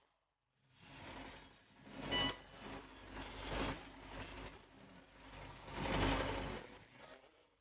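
Old tractor engine running as the tractor drives along, its sound swelling and fading several times.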